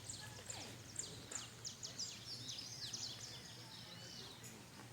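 Birds chirping: many quick, high, sweeping calls in rapid succession, thinning out after about three and a half seconds, over a faint steady low hum.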